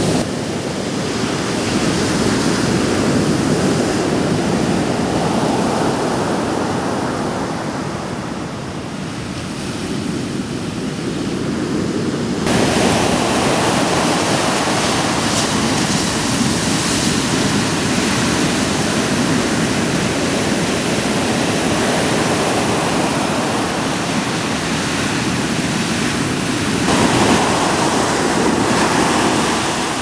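Ocean surf breaking and washing up a sandy beach, a continuous rushing that swells and eases as the waves come in. The sound changes abruptly about twelve seconds in and again near the end, where one stretch of surf is cut to another.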